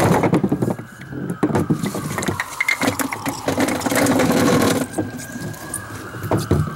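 String pinsetter on a homemade mini-pin bowling lane resetting: knocked-down 10-inch wooden pins clatter on the wooden deck, then rattle and knock together as they are hauled up on their cords and lowered back into place. The rattling is loudest at the start and again from about a second and a half in until near the five-second mark, with a faint rising-and-falling wail underneath.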